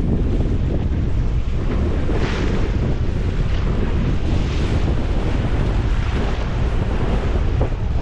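Strong wind buffeting the microphone on a sailboat under sail, with a heavy low rumble. Waves wash against the hull, with a couple of swells of hissing spray.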